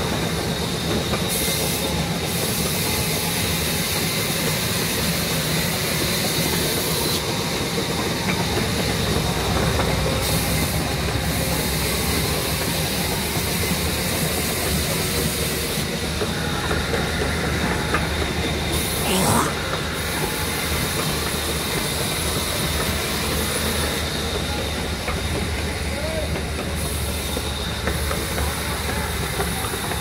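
Sawmill band saw machinery running continuously with a steady mechanical hum and whine, with one brief louder sound about nineteen seconds in.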